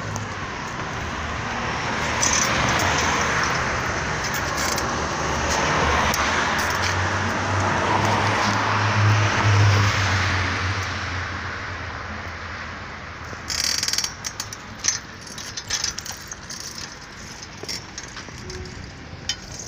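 Street traffic noise, a passing vehicle's rush swelling and fading over the first half. Later it gives way to a run of irregular sharp clicks and rattles.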